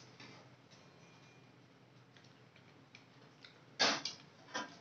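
A person eating a bite of food: faint clicks and mouth sounds. Near the end, two short, louder noises come in quick succession, the first the louder.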